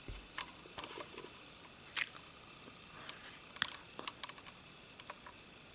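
Faint, irregular clicks and taps from an iPod Touch 5th generation being tapped through its setup screens, with one sharper click about two seconds in.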